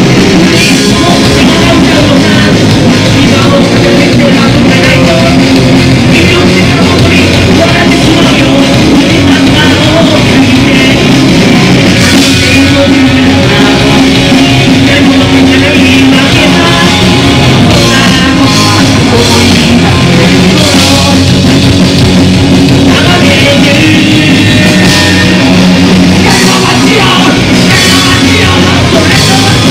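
A punk rock band playing live: electric guitars, bass and a drum kit with a shouted lead vocal. It is loud and dense throughout, recorded from within the crowd.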